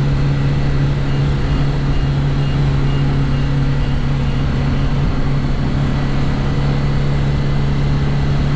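In-cabin drone of a 1969 Reliant Regal three-wheeler's four-cylinder engine cruising at a steady speed, around 4,000 rpm. A faint high tick repeats about twice a second during the first few seconds.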